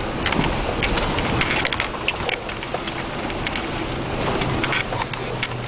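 Off-road vehicle ploughing through floodwater, heard from inside the cab: muddy water sprays and splashes against the windshield and body over the steady running of the engine, with scattered sharp knocks and rattles.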